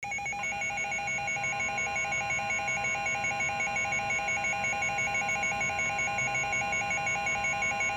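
NOAA Weather Radio warning alert tone: a steady electronic alarm of several fixed pitches with a fast pulsing beep woven through it, starting about half a second in. It is the alert that signals a warning broadcast, here a severe thunderstorm warning.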